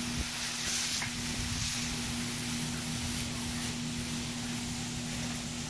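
Fine jets of water spraying onto a grass lawn: a steady hiss, with a faint steady hum underneath.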